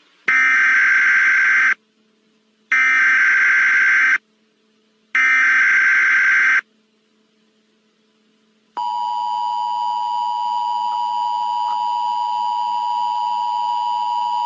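Emergency Alert System tones. Three harsh digital data bursts of the SAME header, each about one and a half seconds long and about a second apart, are followed nearly nine seconds in by the steady two-tone attention signal, which keeps sounding.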